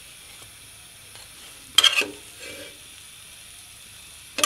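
A metal spatula and tongs scrape and knock against a metal frying pan while a burger bun is pressed in a little hot ghee, over a faint steady sizzle. The loudest scrape comes about two seconds in, with a shorter one just after and another near the end.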